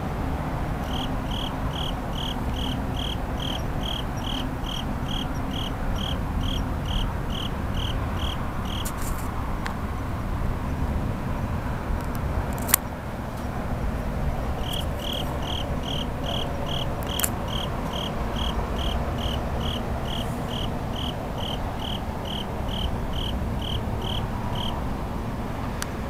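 A cricket chirping in a steady rhythm of about two high pitched chirps a second, in two long runs with a pause between them, over the steady low hum of city traffic. A single sharp click comes about halfway through.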